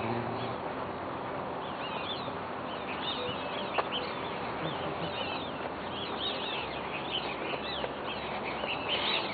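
Many birds chirping, with short rising and falling calls repeating throughout over a steady background hiss, and a single sharp click about four seconds in.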